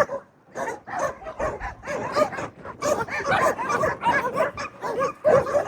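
Many dogs barking and yipping at once, their short calls overlapping into a continuous chorus after a brief lull at the start.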